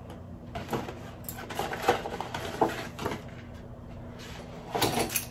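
Paper shopping bag rustling as small cardboard product boxes are pulled out of it and handled, in several short, irregular bursts of crinkling and light taps.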